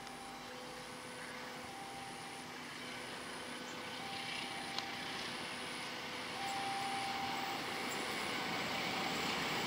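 Distant passenger train hauled by a diesel-electric locomotive, approaching: a low, even rumble that grows steadily louder.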